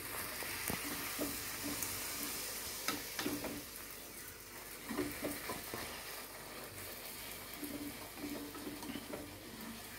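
Stuffed maida puri deep-frying in hot oil in a kadai, sizzling steadily, with a few sharp clicks and knocks against the pan while it is turned and pressed.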